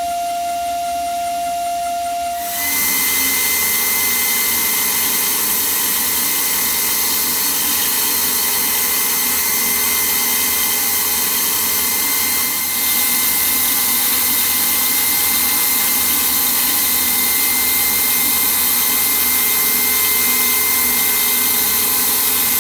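Ringmaker CNC jewelry milling machine's high-speed spindles cutting a ring: a steady whine over a hiss. About two and a half seconds in, a single lower tone gives way to a higher whine and a louder hiss, and the sound grows a little louder about 13 seconds in.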